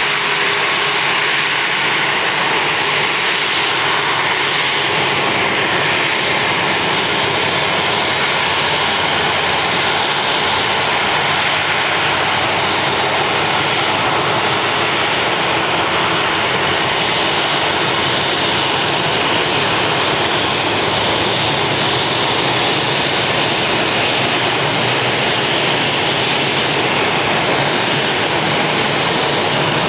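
Boeing 737-800's CFM56-7B turbofan engines running steadily at idle: a constant jet rush with a faint high whine.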